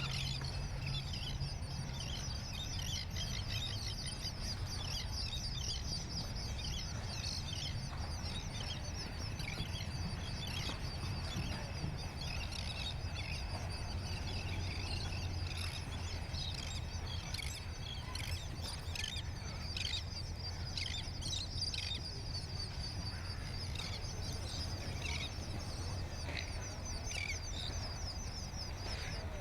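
Many birds chirping continuously in dense, overlapping high calls, over a steady low rumble.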